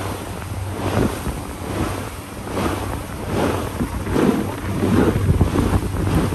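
Wind gusting and buffeting the microphone in irregular surges over a low, steady boat-motor hum.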